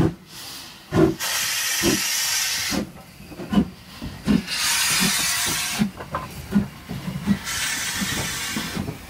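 LMS Ivatt Class 2MT 2-6-2T tank steam locomotive No. 41298 moving slowly past with its goods train. Steam hisses in three long bursts, and low knocks come about every three-quarters of a second between them.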